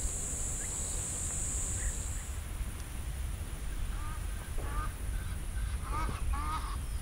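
A high, steady insect buzz that stops about two seconds in, then a run of short honking calls from waterfowl, several in a row from about four seconds in, over a low steady rumble.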